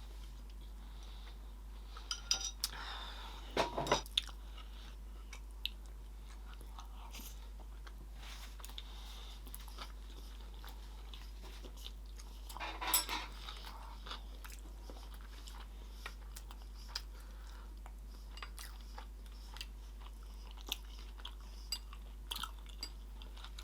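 Close-miked chewing of sushi rolls, with soft crunching and sharp wet mouth clicks. Two louder spells of chewing come about two to four seconds in and again around thirteen seconds.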